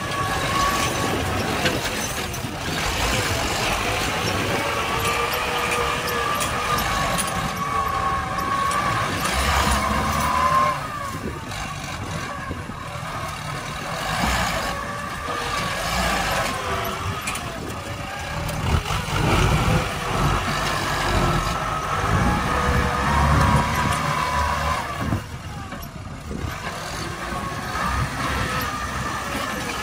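Diesel farm tractor engines working under load, their pitch rising and falling as the front loader pushes earth, with heavier rumbling stretches about a third of the way in and again past the middle.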